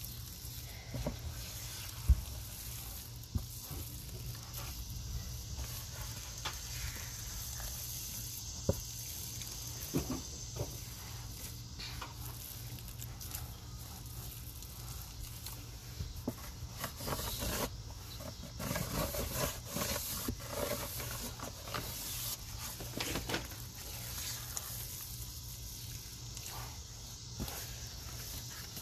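Hand squishing and kneading a thick, wet grey powder paste in a plastic tub: irregular squelching and crackling, with a sharp click about two seconds in, over a steady low outdoor hum.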